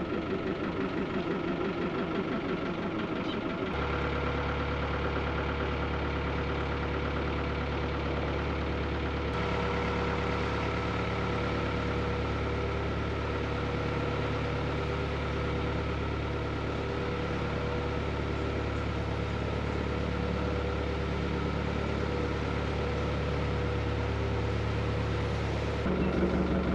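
Narrowboat's diesel engine running steadily; its hum deepens about four seconds in.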